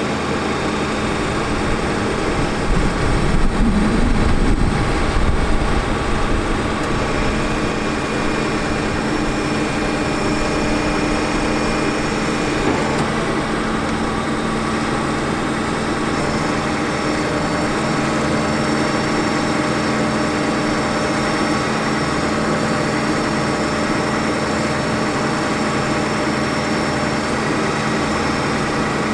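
A Ford F450's 6.4L Power Stroke diesel running at a steady idle-like speed with an even, pitched hum, powering the bucket truck's hydraulic boom. A louder low rumble swells briefly about three to six seconds in.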